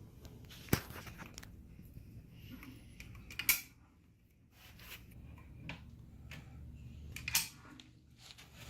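A few sharp clicks and light knocks from objects being handled, three of them standing out, over a faint low hum in a small room.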